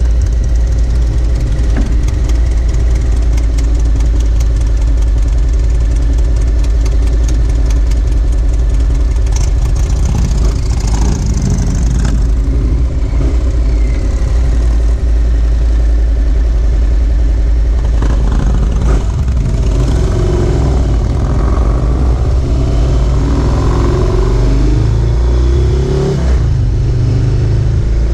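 Motorcycle engine idling with a steady low rumble, then revving and pulling away about two-thirds of the way through, its pitch climbing and dropping back with each gear change.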